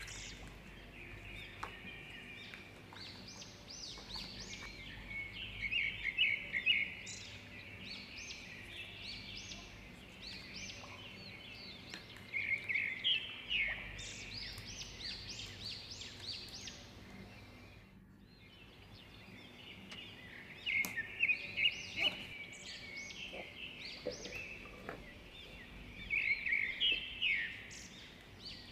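Songbirds chirping and singing in bursts every few seconds, with a short break about two-thirds of the way through.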